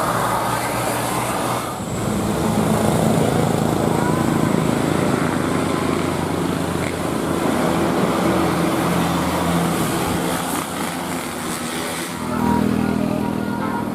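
Bus engine running and road noise heard from inside the cabin, a steady low drone over a broad rush, with the engine note growing louder about twelve seconds in.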